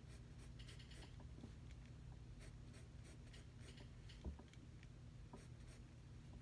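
Faint pencil strokes scratching on sketchbook paper, a series of short strokes as a curve is sketched, with one soft thump a little past four seconds in.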